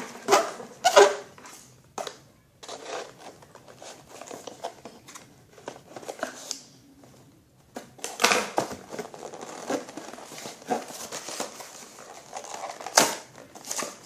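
Toy packaging being handled and pulled open: irregular rustling and crinkling with scattered sharp clicks and knocks, the loudest about a second in and near the end.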